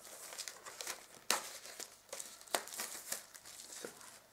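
Clear plastic shrink-wrap crinkling and crackling as it is torn and peeled off a metal Blu-ray steelbook case, with several sharp snaps of the plastic.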